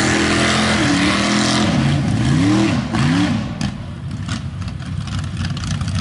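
Lifted Toyota mud truck's engine revving hard as it churns through a mud pit, with a spray of mud and water over it. About two seconds in the revs swing up and down sharply several times. Then the engine drops lower and quieter as the truck leaves the mud.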